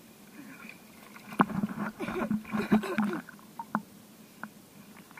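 Sea water sloshing and gurgling against a camera held at the surface, with a busy stretch of splashing and bubbling in the middle, plus a few sharp knocks of water on the housing.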